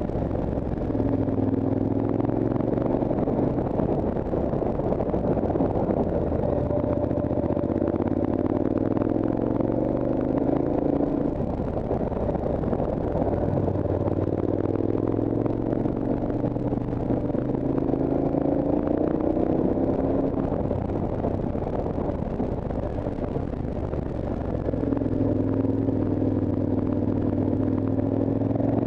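Motorcycle engine heard from the rider's seat while climbing, its pitch rising in several pulls under acceleration and dropping back between them, over steady wind and road noise.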